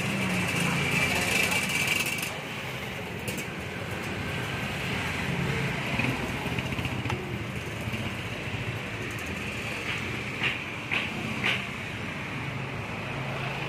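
Steady street traffic with the low hum of passing motor vehicles, louder in the first two seconds, and a few brief sharp sounds near the end.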